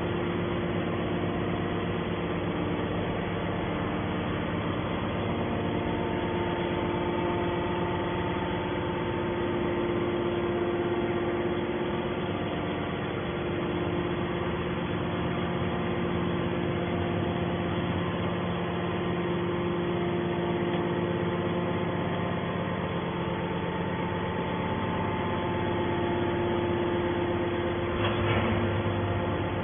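Hydraulic can baler's motor and pump running with a steady hum made of several even tones. There is a brief knock near the end.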